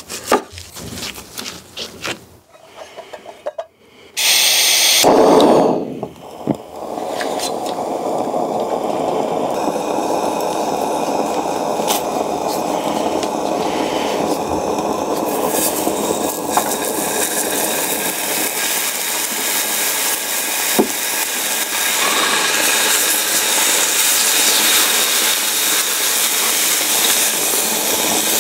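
A knife slicing raw beef tongue against a wooden cutting board, with scraping strokes, then a short loud noisy burst. From about seven seconds in, a steady sizzle follows: slices of beef tongue searing on a hot tabletop grill pan.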